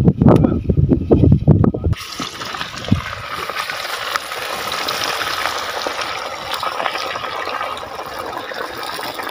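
Wind rumbling on the microphone for about two seconds. Then deep-frying oil sizzles and bubbles steadily in an aluminium pot over a wood fire as pieces of fish fry, with one light knock about three seconds in.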